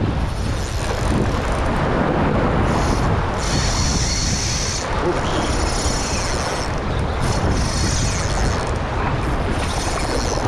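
Surf washing over shoreline rocks, with steady wind rumble on the microphone.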